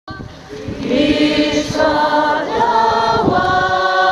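A congregation singing a hymn together, many voices holding long notes; the singing swells up about a second in.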